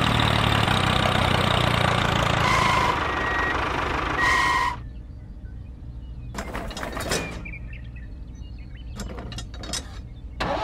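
A tractor engine running steadily, with two short high beeps, cuts off abruptly about halfway. After it, light plastic clicks and taps as the toy trailer is hitched to the model tractor by hand.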